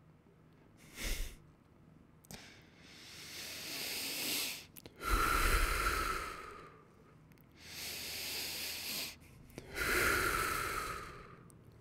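A man breathing slowly and deeply close to a microphone: a short puff about a second in, then two long breaths in and out, each breath out louder than the breath in.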